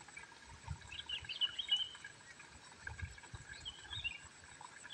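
Faint sloshing and soft knocks of water in a plastic bucket as a hand gropes among small fish and grabs a snakehead. Birds chirp in short calls in the background.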